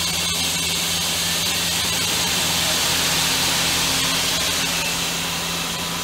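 Mazak Quick Turn Nexus 250-II MSY CNC lathe's main spindle spinning at about 1600 RPM, a steady mechanical hum with a hiss over it.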